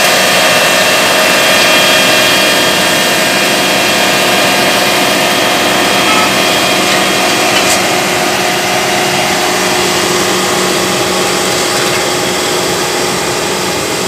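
Apollo asphalt paver's diesel engine and machinery running steadily at close range: a loud, even drone with constant whining tones.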